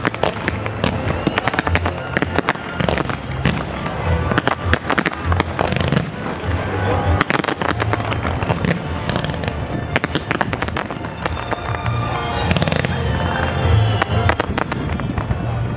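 A fireworks display: shells bursting one after another with dense bangs and crackling. Music with a steady bass line plays underneath.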